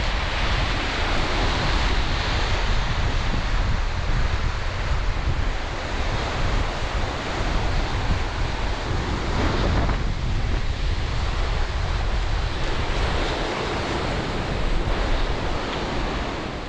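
Sea surf washing onto a beach, with strong wind buffeting the microphone in a heavy rumble.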